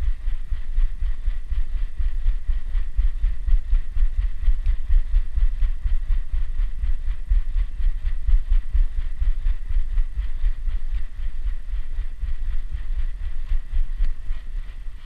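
A GoPro strapped to a running dog picks up a fast, rhythmic clatter of the dog's gait and footfalls, over a heavy low rumble of the body-mounted camera being jostled.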